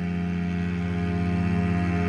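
Background music: the slow intro of a song, sustained chords held steady and gradually getting louder.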